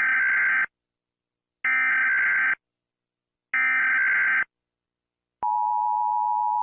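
Emergency Alert System broadcast header: three bursts of digital SAME data tones, each just under a second long and about two seconds apart. About five and a half seconds in, the steady two-tone EAS attention signal begins.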